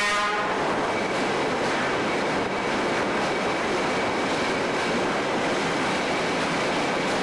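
A train running along the line with a steady, even noise of wheels and rails. The tail of a horn blast cuts off at the very start.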